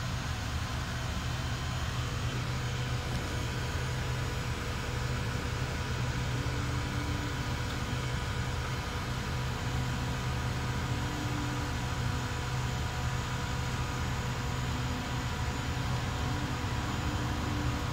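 Low, steady rumble of a Boeing 767-300 jet airliner's engines passing high overhead, with a fainter hiss above it.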